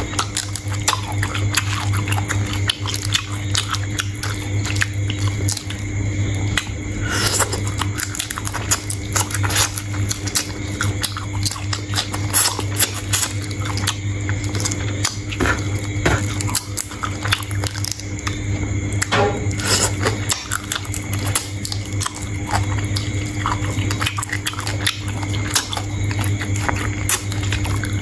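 Close-miked chewing and biting of shrimp: dense, irregular small crunches and clicks, over a steady low hum.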